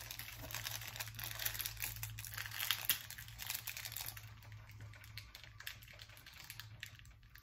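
Snack wrappers crinkling and crackling as individually wrapped cookies are unwrapped by hand: dense for the first few seconds, then sparser.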